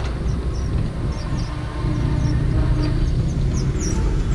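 A vehicle engine on the road: a steady low hum that grows fuller about two seconds in, with short high chirps repeating over it.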